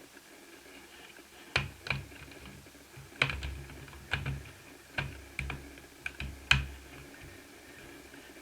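Keys being pressed one at a time on a laptop keyboard: about a dozen separate clicks, each with a dull thud, starting about a second and a half in.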